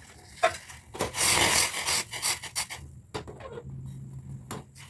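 Kitchen handling noises: about a second and a half of rustling scraping, then a few light clicks and knocks.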